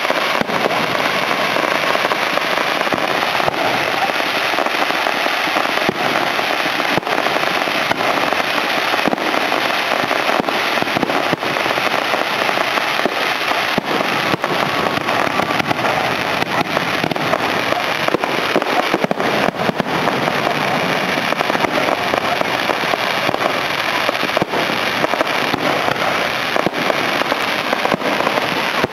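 Aerial fireworks going off in a dense, continuous barrage: many sharp bangs, several a second, over a steady sheet of crackling.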